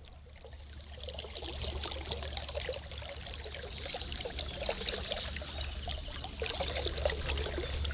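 Creek water splashing and trickling, a busy run of small splashes that grows louder over the first couple of seconds and then holds, over a low steady rumble.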